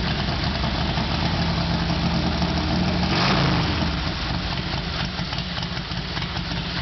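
Confederate Motors Hellcat motorcycle's V-twin engine idling, swelling briefly about three seconds in.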